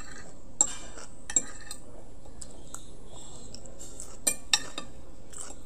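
Metal fork and spoon clinking and scraping against a plate while eating, with a few sharp clinks, two of them close together late on.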